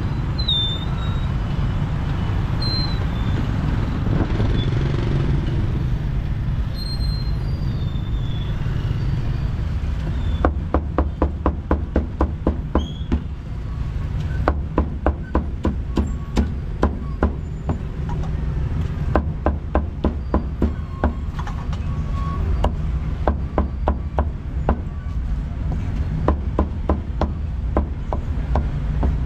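Cleaver chopping meat on a chopping block in quick, regular strokes of about four a second, in runs with short pauses, starting about ten seconds in. Before that there is only a steady low background rumble.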